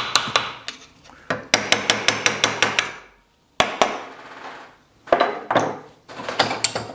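Small hammer tapping on metal in quick runs of strikes, about six a second, with short pauses between runs: driving the bearing cap of a Land Rover prop shaft universal joint held in a bench vise.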